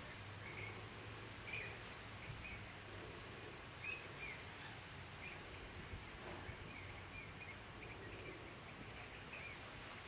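Outdoor ambience of steady background noise with faint, short bird calls scattered through it, coming every second or so.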